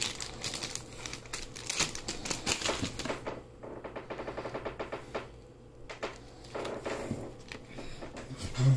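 Thin plastic packaging crackling and clicking rapidly as it is handled for about three seconds, then quieter scattered handling clicks. Near the end a single sharp knock as a 10 oz silver bar in its hard clear plastic case is set against the tabletop.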